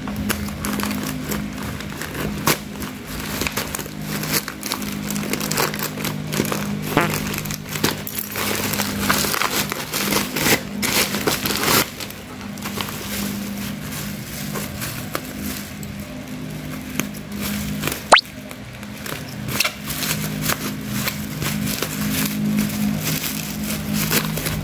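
Black plastic mailer bags and bubble wrap crinkling and rustling as they are snipped open with small thread snips and pulled apart, with one sharp click about three-quarters of the way through. Background music plays under it.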